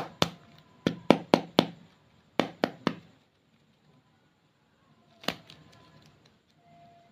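A series of sharp taps or clicks on a hard surface, several in quick succession over the first three seconds, then a pause and a single louder click later on.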